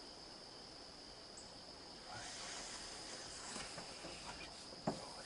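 A steady high-pitched insect chorus in the woods. From about two seconds in, soft rustling with small clicks joins it, and near the end there is a single sharp knock, the loudest sound.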